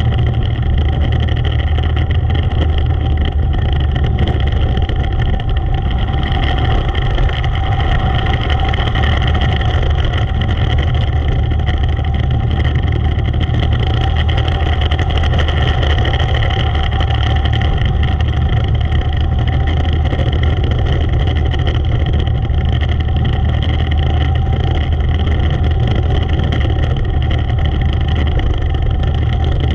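Race car engine of a Predator 400 class car running hard and steady at racing speed, a loud deep drone that does not let up.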